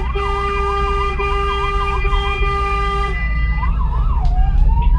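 Vehicle siren yelping, sweeping quickly up and down several times a second, with a steady pitched tone held over it for about the first three seconds; about four seconds in it changes to a slow rising wail. A constant low engine and road rumble sits under it, heard from inside a moving car.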